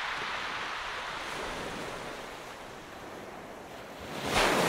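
Sea waves washing on a shore: a steady surf that ebbs, then swells with a new breaking wave near the end.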